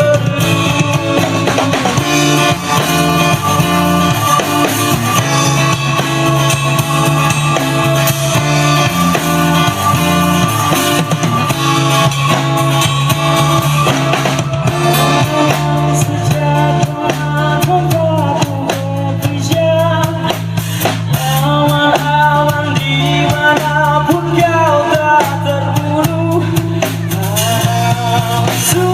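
A rock band playing: drum kit, bass and guitars, with a sung or lead melody line coming in about halfway through.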